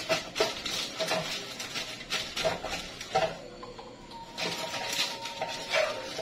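Stainless steel pot and metal kitchenware clinking and scraping as they are handled, a string of short knocks with a quieter stretch about halfway through.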